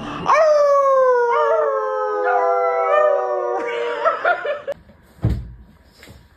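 A dog howling: one long howl of about three seconds that slowly sinks a little in pitch, followed by a few shorter wavering notes.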